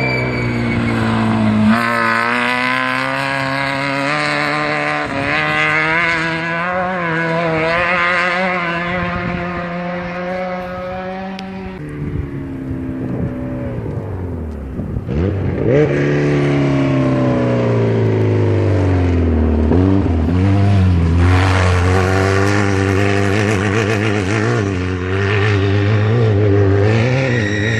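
Off-road race vehicle engines running hard as they pass, their pitch rising and falling with revving and shifts. About twelve seconds in the sound changes abruptly and another engine takes over, with a quick dive and climb in pitch, then runs on with a wavering pitch.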